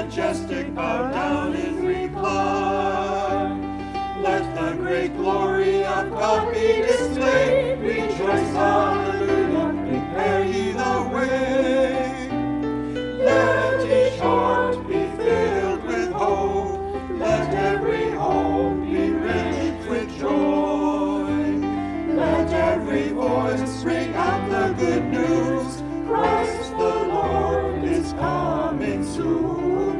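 A choir singing a worship song over instrumental accompaniment, with a bass line that moves note by note.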